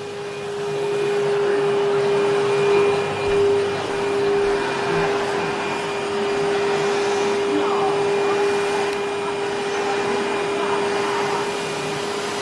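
Vacuum cleaner running, a steady whine over the rush of air, getting louder about a second in.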